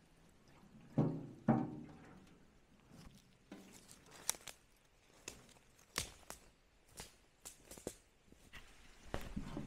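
Two thuds about a second in as a square metal tin is handled, then scattered footsteps and snapping twigs on leaf litter in woodland undergrowth.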